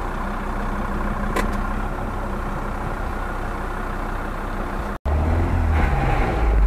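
Jeep Grand Cherokee engine running steadily under load while its wheels churn through mud and water in a creek. About five seconds in, the sound cuts to a louder, deeper engine rumble.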